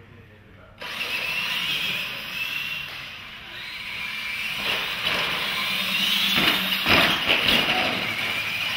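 Two radio-controlled monster trucks launching side by side, their electric motors and gearboxes whining as they accelerate, starting suddenly about a second in. A few sharp knocks near the end as the trucks run over the car-crush obstacles.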